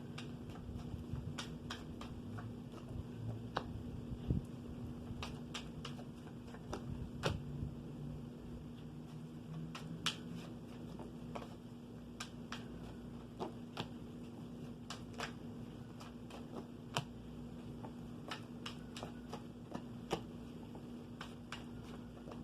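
Tarot cards being handled, shuffled and laid down: irregular light clicks and snaps, a few to several every second, over a steady low hum.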